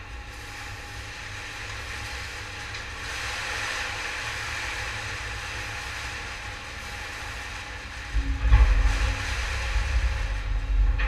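CTR82 twin-ram baler's 37 kW hydraulic power unit running with a steady mechanical hiss. About eight seconds in, a louder low rumble and a steady low hum set in as the machine works harder.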